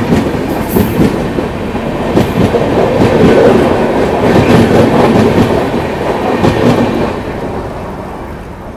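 A passenger express train running past on the adjacent track, its wheels rumbling over the rails. Loudest through the middle, then fading away over the last two seconds as it moves off.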